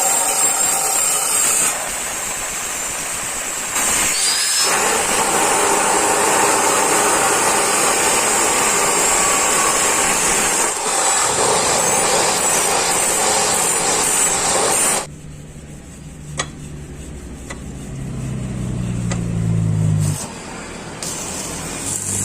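A power tool, typical of metalwork on a motorcycle rickshaw frame, runs loudly for about fifteen seconds, easing briefly a couple of seconds in, then cuts off suddenly. A quieter low hum that rises slightly in pitch follows, with a few clicks.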